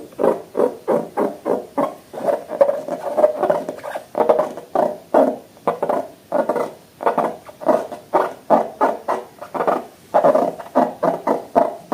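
Slime being squished and worked by hand: a rapid run of short, wet squelches, about two to three a second.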